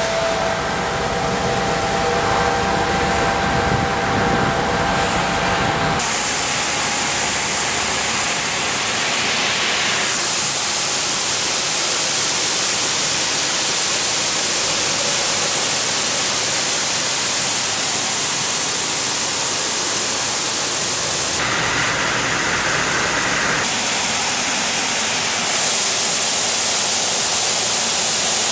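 Cappellotto CapStreet road-cleaning suction unit working along the asphalt, a steady loud rushing hiss. For the first six seconds it is instead a truck's machine hum with several steady tones, which switches abruptly to the hiss.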